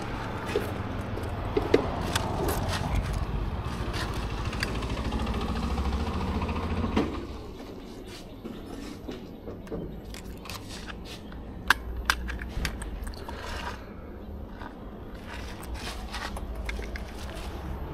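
Road and wind rumble from riding an electric scooter, dropping off about seven seconds in, with scattered clicks and rattles.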